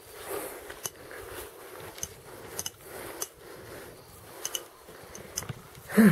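Footsteps scuffing along a sandy path at a walking pace, with small clicks and ticks among the steps. Near the end there is a short, loud voice sound that falls in pitch.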